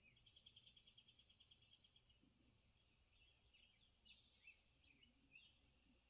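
Small songbirds from a bird-watching video playing on a TV: a fast, high trill of about ten notes a second for two seconds, then fainter scattered chirps and short runs of notes.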